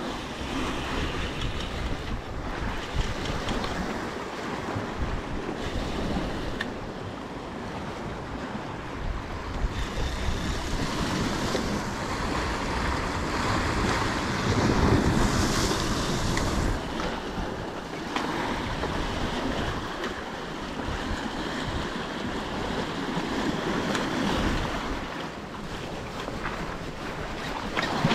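Sea swell washing and splashing against the rocks at the foot of a shore ledge, with wind buffeting the microphone. The wash surges louder about halfway through, then settles back.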